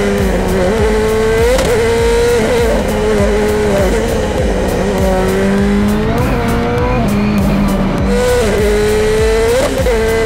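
The Airslayer Subaru WRX STI's turbocharged race engine at full throttle on a hillclimb run. Its pitch climbs and drops sharply three times as it shifts up, with crackling pops over the top.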